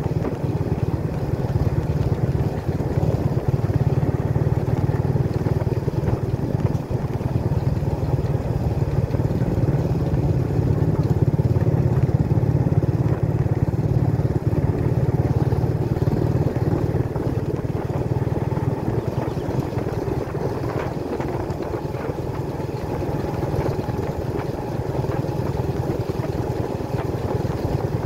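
Motorcycle engine running steadily at cruising speed, recorded from on the bike itself.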